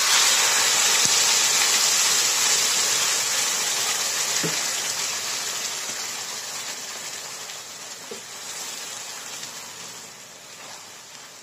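Wet ground masala paste frying in hot oil with cumin seeds in a nonstick pan: loud sizzling and spluttering that starts at once and slowly dies down as the paste's water cooks off. There are a few light knocks of a wooden spatula stirring near the end.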